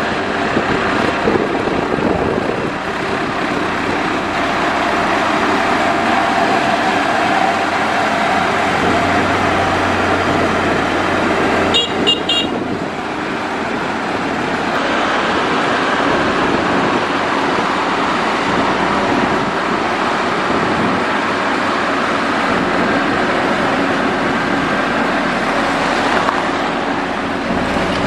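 A motor grader's heavy diesel engine running steadily while it grades gravel. About halfway through come two short, high-pitched beeps.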